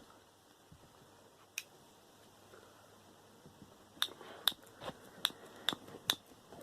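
Sharp clicks of hand tools working on the metal of a transformer motor being taken apart: one about a second and a half in, then six in a row at about two a second near the end.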